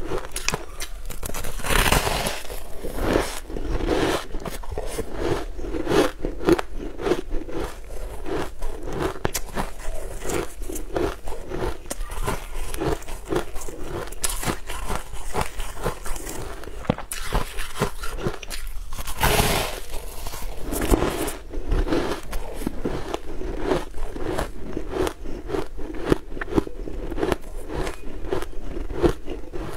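Crunching and chewing of sugar-crusted frozen ice chunks: a dense run of crackling crunches throughout, with louder bites about two seconds in and again a little past the middle.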